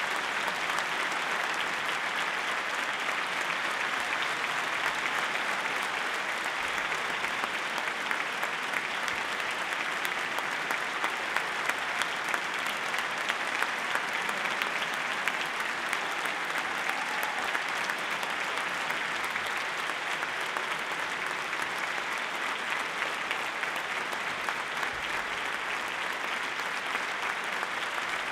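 Audience applauding steadily, a dense, even clapping that neither builds nor fades.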